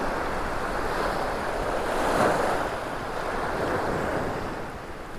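Ocean surf breaking and washing up the beach, with wind buffeting the microphone. The wash swells about two seconds in and fades toward the end.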